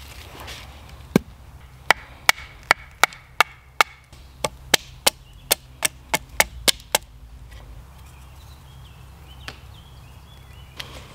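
Wooden baton striking the spine of a knife to split a thin stick down from its end: a run of about twenty sharp wooden knocks, roughly three a second, that stops about seven seconds in.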